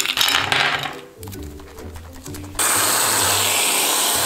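Ice cubes clinking and rattling, then from about two and a half seconds in the loud, steady hiss of an aerosol whipped-cream can spraying, with a thin high whistle in it. Background music plays throughout.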